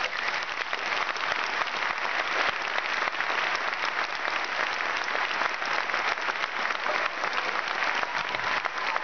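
Audience applause in a hall: many people clapping steadily and densely.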